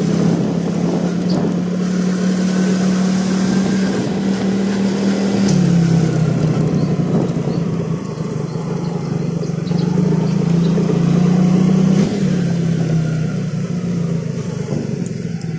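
Small motorbike's engine running while being ridden, with a steady drone whose pitch drops about five and a half seconds in, climbs again, and drops once more around twelve seconds. Wind and road noise run under it.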